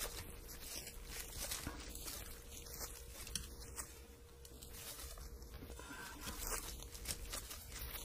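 Disposable plastic glove crinkling, with small scattered metal clicks as a chain tool is worked on a road-bike chain to push out a pin.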